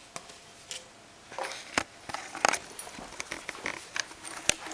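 Dog mouthing and chewing a coffee cup and its plastic lid: a run of crackly scrapes and sharp clicks that starts about a second in, the sharpest about halfway through and near the end.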